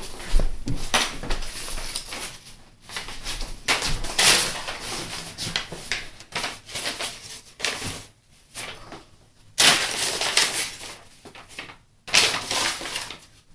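Sheet paper crinkling and rustling as it is handled, in irregular bursts with brief pauses.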